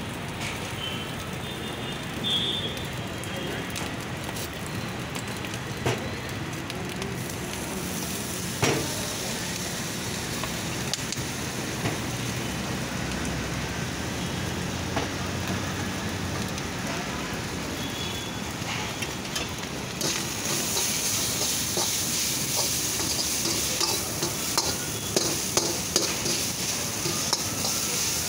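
Schezwan noodles and rice sizzling in a hot wok while a steel ladle stirs and scrapes, with an occasional clink of the ladle on the pan. About two-thirds of the way through the sizzle grows louder and the ladle clinks come rapidly as the food is tossed.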